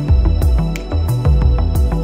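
Background music with a steady beat and a strong bass line.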